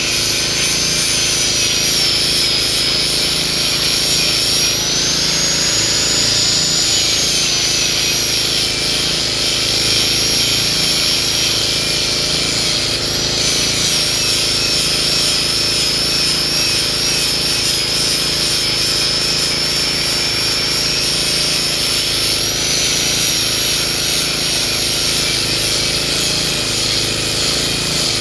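Hitachi excavator running steadily under load as it chops up oil palm trunks, with a high whine that wanders up and down in pitch.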